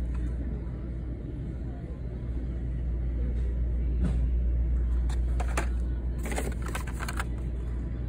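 Carded Hot Wheels packs, plastic blisters on cardboard backs, rustling and clacking against each other and the cardboard case as they are pulled out one at a time: a few short scratchy bursts in the second half, over a steady low rumble.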